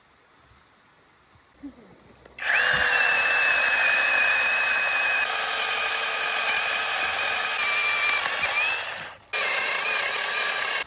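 A small electric motor starts with a quick rising whine about two and a half seconds in, then runs with a steady high whine. It stops briefly near the end and starts again.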